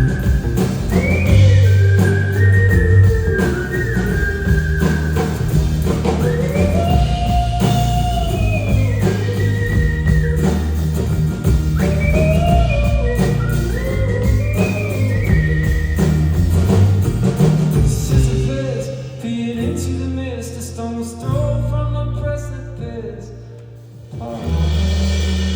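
Live indie rock band playing, with drums, bass and a high gliding lead melody over them. The playing thins out about three quarters of the way through, then a loud low chord comes in near the end.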